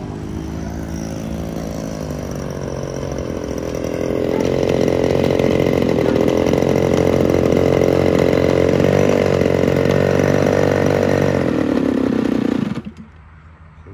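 Engine of a giant-scale Seagull Japanese Zero RC airplane running with the propeller turning. It revs up in the first couple of seconds and gets louder about four seconds in, then slows and cuts off abruptly about a second before the end.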